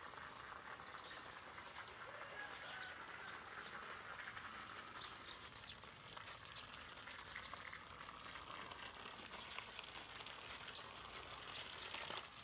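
Small electric motor of a homemade cardboard toy car running as the car drives over concrete and gritty ground: a faint, steady crackling hiss.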